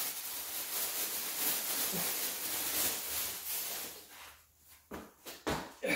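Black plastic bag rustling and crinkling as a heavy manual transmission is hauled out of it, followed by a few sharp knocks near the end.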